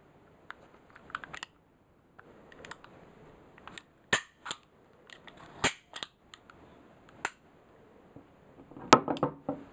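A Röhm RG3 6 mm flobert starter pistol being handled: a series of sharp, separate metallic clicks from its mechanism, then a short clatter of knocks near the end as the pistol is set down on a wooden desk.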